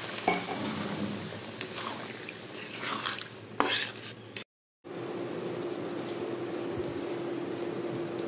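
Masala gravy with paneer bubbling and sizzling in a steel kadai just after water has been added, with a few sharp clinks and scrapes of a metal spatula against the pan. The sound cuts out briefly about halfway, then an even simmer follows with a steady low hum.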